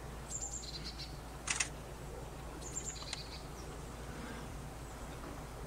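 A bird repeating a short two-part call, a high note followed by a lower one, about every two and a half seconds, over a steady low rumble of wind and ambience. A brief harsh, scratchy sound comes about one and a half seconds in.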